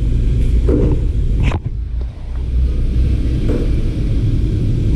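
Steady low rumble, with a brief click and a short drop in level about one and a half seconds in.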